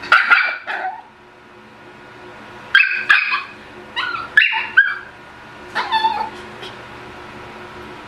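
Pomeranian puppy yapping: high-pitched barks and yips in four short bursts, with pauses between them.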